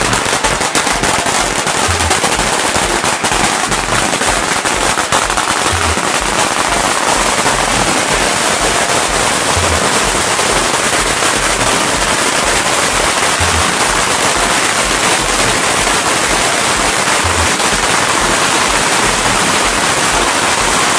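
A long string of Chinese firecrackers going off in a continuous, rapid crackle of bangs that doesn't let up.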